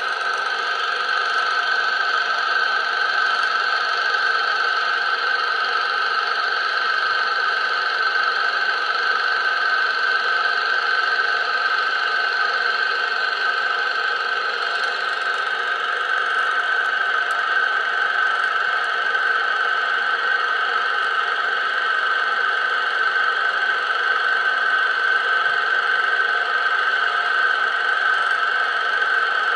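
A steady machine-like drone that fades in at the start, then holds level without a break.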